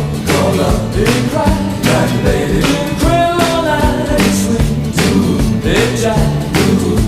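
Background music: an upbeat song with a steady drum beat and a singing voice.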